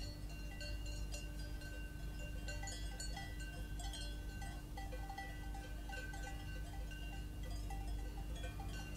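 Cowbells on grazing cattle clanking irregularly, several bells at different pitches ringing together, over a steady low hum and rumble.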